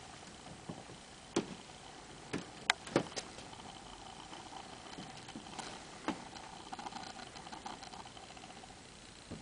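Handling noise from a handheld camera: scattered light clicks and knocks, the sharpest a cluster about one and a half to three seconds in and another about six seconds in, over a steady faint hum.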